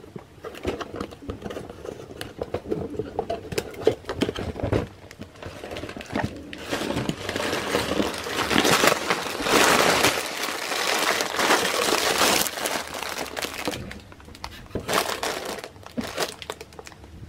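A LEGO set's cardboard box being opened and tipped out, with its sealed plastic bags of bricks crinkling and rustling as they slide out. The rustling is loudest about halfway through, with a few shorter bursts near the end.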